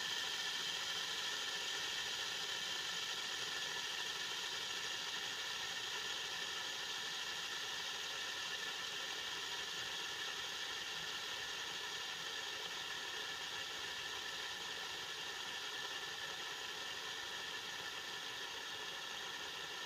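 Three-armed fidget spinner whirring steadily on its centre bearing, growing gradually quieter as it spins.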